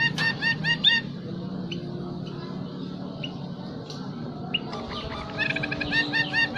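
Caged munia (emprit) singing quick runs of repeated clear, arched notes, about seven a second, once at the start and again about five seconds in. The keeper says this bird's song carries zebra dove and canary phrases.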